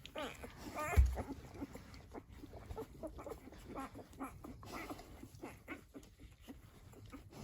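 Newborn Dalmatian puppies about a week old squeaking and whimpering in short, faint cries again and again, with a single thump about a second in.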